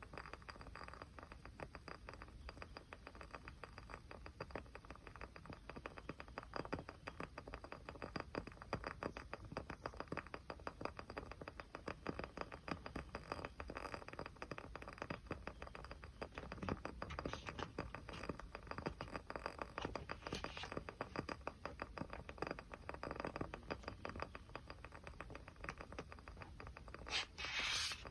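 Small tabletop fire crackling softly, a dense run of fine rapid crackles with a brief louder, hissing crackle near the end.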